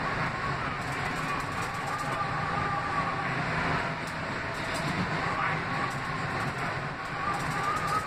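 R160B subway car running on the rails, heard from inside the car: a steady rumble of wheels and car body, with a faint wavering whine over it.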